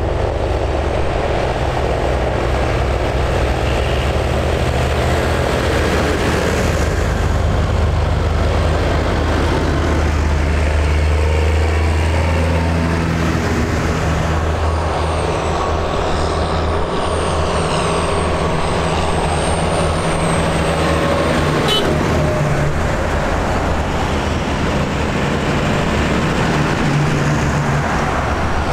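Diesel farm tractors running as they drive past one after another on a road, their low engine notes rising and falling as each passes. A thin high whistle is heard for several seconds in the middle.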